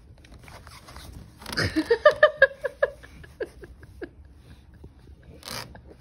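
Nine-month-old baby vocalizing playfully: a fast string of short, pitched sounds starting about one and a half seconds in, then a few scattered ones, and a short breathy burst near the end.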